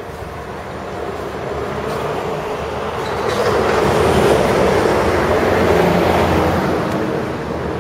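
A vehicle passing on the road: a rushing noise that swells, peaks about four to six seconds in, and eases off near the end.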